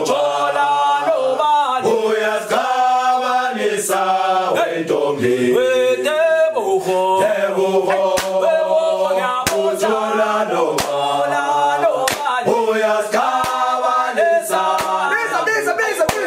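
Background music: a gwijo-style a cappella chant, a group of voices singing together in harmony, with a sharp hit now and then.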